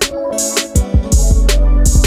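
Background music with a steady bass line and a drum beat.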